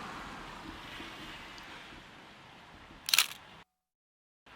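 A camera shutter clicks once, about three seconds in, over a faint background hiss.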